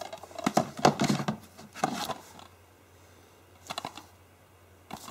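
Plastic DVD keep cases clicking and clattering as they are handled and pulled from a shelf, in a few short bursts.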